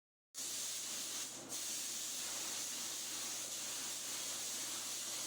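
Steady spraying hiss, briefly dipping and resuming about a second and a half in, over a faint steady hum.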